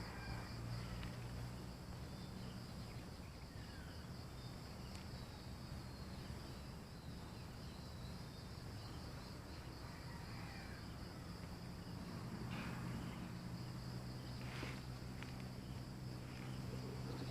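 Steady high-pitched chorus of insects in dense vegetation. A few faint rustles come in the second half.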